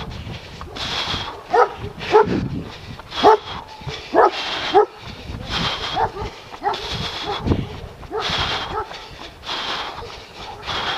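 A dog barking, about seven short sharp barks, most of them in the first half, over a regular hissing swish that comes about once a second.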